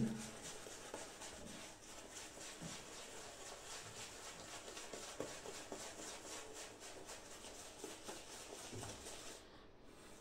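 Shaving brush swirling soap lather over the face in quick, rhythmic, faint strokes, stopping near the end as the brush is lifted away.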